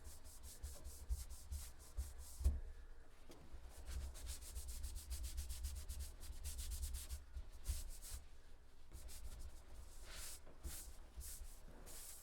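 Quick back-and-forth rubbing on a sanded wooden handrail, a cloth working in the first coat of Danish oil, with closely spaced strokes over a low handling rumble and a couple of light knocks.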